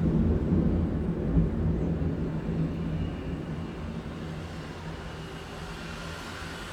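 A motor vehicle's engine passes on the street, a deep rumble that is loudest in the first second or two and fades away over the next few seconds, leaving the steady hum of city traffic.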